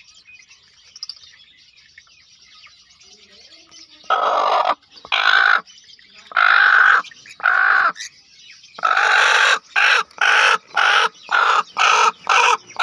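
A broody white hen sitting on her eggs gives loud, harsh protest calls, the scolding of a sitting hen being disturbed on the nest. The calls begin about four seconds in, first about one a second and then quicker, about two a second, from around nine seconds. Faint high chirps come before them.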